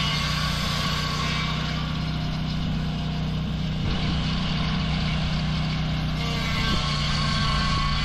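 Gasoline engine of a Lucas portable swing blade sawmill running steadily at speed while the blade saws a walnut log, the sound shifting a little a couple of times as the load changes.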